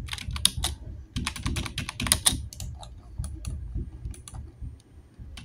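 Computer keyboard being typed on: a quick run of key clicks for the first two and a half seconds or so, then scattered single clicks.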